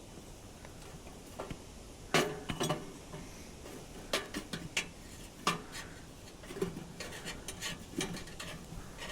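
Metal cookware and utensils clinking and scraping against each other in irregular knocks over a faint steady hiss. The knocks start about two seconds in, and the first is the loudest.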